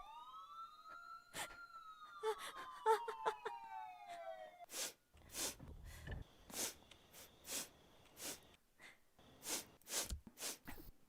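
A sliding electronic tone that rises then falls, with other falling tones, for the first four or five seconds; then a run of about ten short, sharp breaths close to the microphone, in and out in quick gasps.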